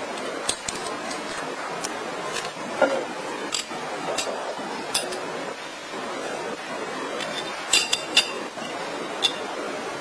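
Small metal parts of an air-rifle regulator clinking and clicking as a pressure gauge is fitted and screwed in: about a dozen scattered light taps, the sharpest about three seconds in and a quick cluster of three near eight seconds, over a steady background noise.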